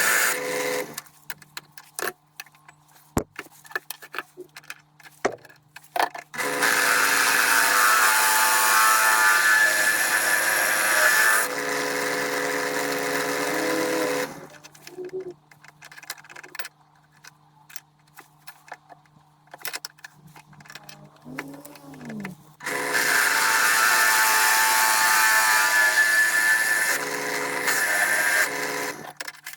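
An electric power tool's motor running steadily in spells of several seconds, switched off in between, with scattered clicks and taps from handling parts during the pauses.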